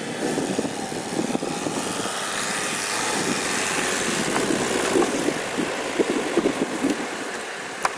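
Chevrolet Niva's engine running under load with its wheels spinning and churning through deep snow.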